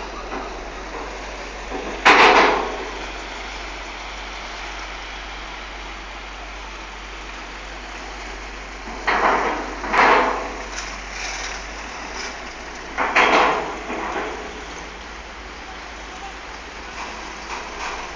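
Loud metallic clanks of vehicle wheels rolling over a car ferry's steel loading ramp: four clanks, two of them less than a second apart, over a steady rushing background.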